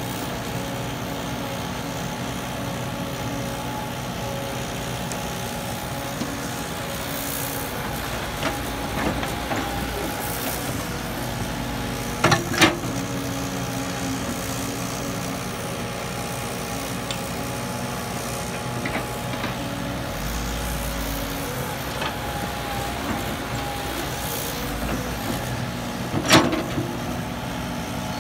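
Diesel engine of a tracked excavator running steadily as it digs soil, with two sharp knocks, one near the middle and one near the end.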